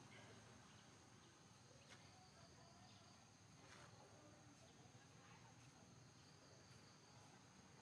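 Near silence with a faint, steady high-pitched drone of insects and a few faint clicks.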